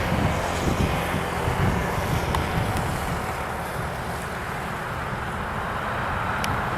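Jet airliner engines rumbling steadily, with wind buffeting the microphone.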